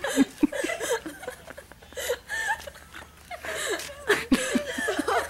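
Girls giggling and laughing in short, broken bursts, with a few short sharp sounds mixed in.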